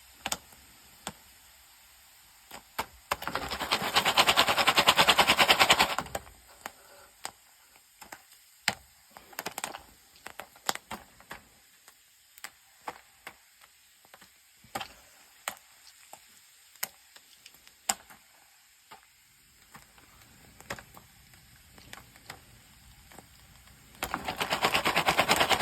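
Jiffy Pop popcorn popping on a camp stove: scattered single kernel pops. There are two loud stretches of fast, dense rattling and crackling from the foil pan, one about three seconds in and one near the end.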